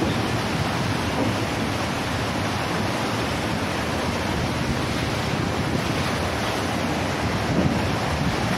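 Choppy sea water churning and rushing around the bridge piers, with wind buffeting the microphone: a steady, even rushing noise.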